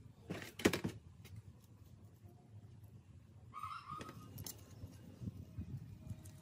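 A few sharp clicks of small metal motorbike brake parts being handled on a workbench, the loudest just under a second in. A chicken calls faintly once, about three and a half seconds in.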